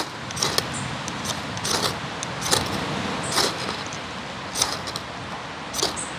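Newly lit wood fire burning with a steady hiss and irregular sharp pops and crackles, about one a second.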